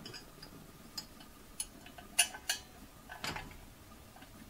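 Light metallic clicks and taps of steel bolts and the oil pickup tube against a cast-aluminium oil pan as the bolts are set in by hand: a few separate sharp clicks, the loudest two close together near the middle.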